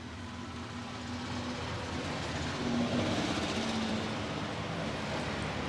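Road traffic: a motor vehicle passing close by, its engine and road noise swelling to a peak about three seconds in.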